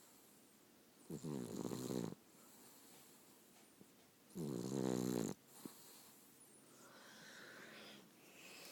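A sleeping cat snoring: two snores about three seconds apart, each about a second long.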